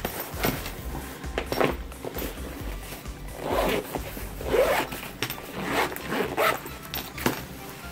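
Zipper on a black fabric knife storage case being pulled open in several short pulls, with the fabric rustling as it is handled.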